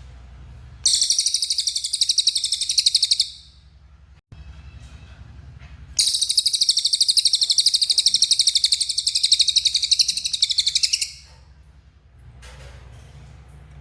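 Cililin bird singing in two long, rapid, buzzy trills, the first about two and a half seconds, the second about five, separated by a pause with a low background hum.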